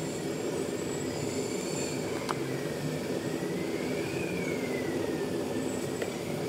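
A steady droning hum of machinery or blowing air, with a faint high whine that slowly rises and falls twice.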